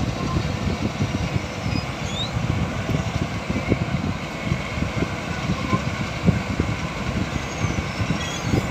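Diesel engine of a Caterpillar AP655D asphalt paver running steadily: a low rumble with irregular low knocks.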